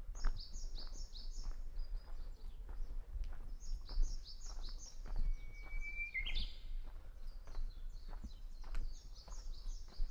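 Japanese bush warbler (uguisu) singing: one long, steady whistled note about five seconds in, ending in a quick rising flourish. Runs of rapid high chirps come in three bursts, at the start, around the middle and near the end.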